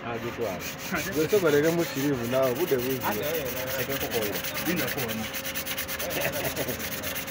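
A hand rubbing and smoothing a metal head gasket down onto a diesel engine block, a dry, continuous rubbing, with voices talking in the background.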